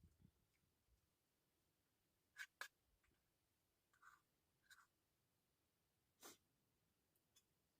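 Near silence, broken by a few faint, short clicks: two close together a little before the middle, two more shortly after, and one near the end.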